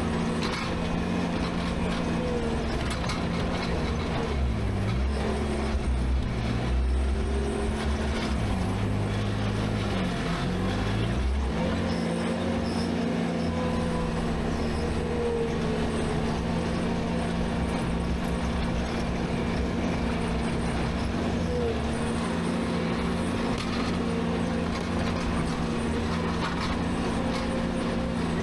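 Skid steer's diesel engine running at high throttle, its pitch dipping under load twice in the first half, then holding steady.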